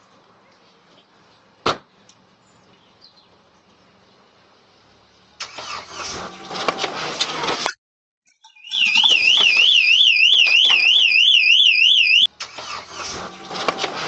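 A loud electronic alarm siren warbling, its pitch swinging up and down about four times a second for several seconds. Before it comes a stretch of noisy clatter and rumble, and a single sharp knock sounds near the start.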